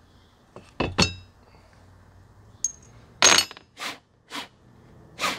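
Steel hand tools and parts clinking while being handled and set down: two sharp metallic clinks that ring briefly about a second in, a smaller clink a little later, then several rougher knocks and scrapes.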